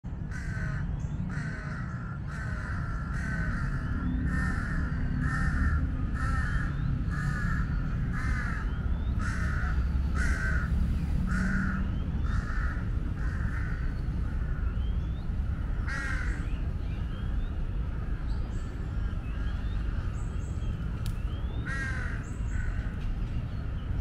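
A crow cawing over and over, about once a second, then only twice more later on. Small birds chirp faintly and a steady low rumble runs underneath.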